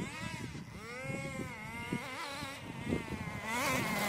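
Small two-stroke nitro glow engine of a 1/10-scale RC buggy revving up and down as it drives, its pitch repeatedly rising and falling. It gets louder near the end as the car comes close.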